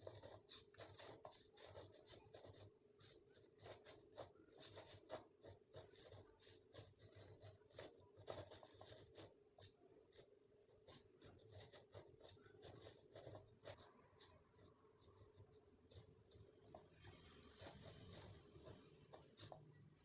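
Faint, irregular scratching with many light clicks, over a low steady hum.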